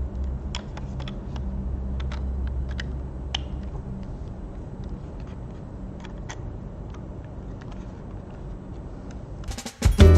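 Scattered light clicks and rattles of small objects being handled over a steady low hum, then music starts abruptly near the end.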